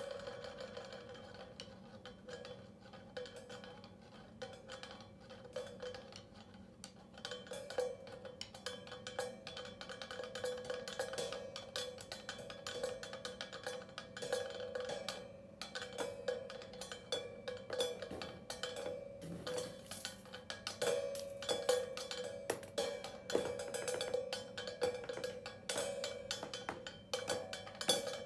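A B8 bronze cymbal struck again and again with a drumstick, each stroke ringing into the next. The strokes are sparse and softer at first, then grow denser and louder after about seven seconds.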